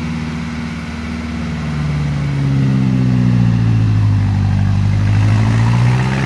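Off-road 4x4's engine working hard in deep mud. The revs climb about two seconds in and stay high, then ease slightly near the end.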